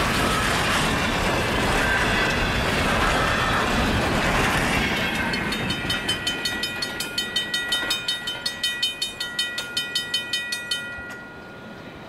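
Last cars of a freight train rolling past at a level crossing. After about five seconds the crossing's warning bell takes over, ringing about three strikes a second. The bell stops shortly before the end, as the crossing gates begin to rise.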